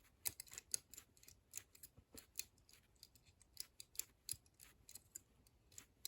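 Faint, irregular metallic clicking of a thin piano-wire pick working the levers of a four-lever cabinet lock held under tension, about three clicks a second.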